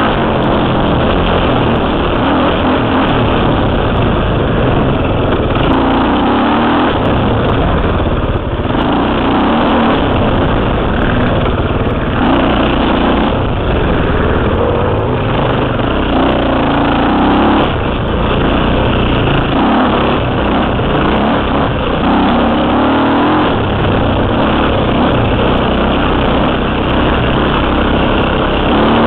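KTM 300 two-stroke single-cylinder dirt bike engine under way, its pitch rising and falling every second or two as the throttle opens and closes, heard close up from the rider's helmet.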